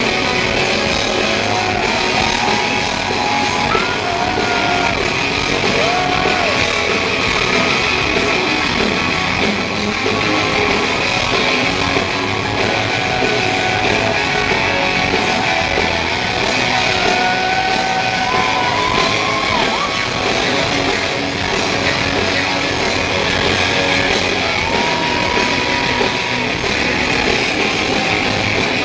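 Live rock band playing loud, with electric guitar.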